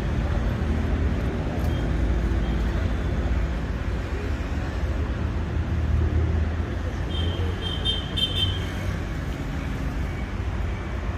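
Steady low rumble of road traffic, with a brief high chirping about seven seconds in.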